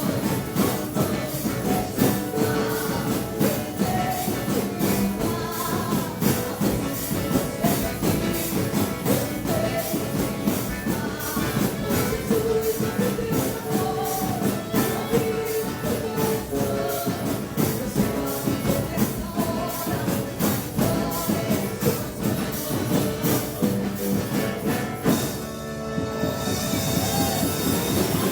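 Drum kit played along to a gospel song, with busy, rhythmic cymbal and snare hits over the music. Near the end the beat stops and a sustained chord rings out.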